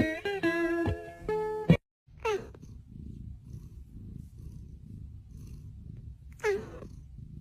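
Background guitar music for about the first second and a half, then a cat purring steadily, broken twice by a short cry that slides downward in pitch.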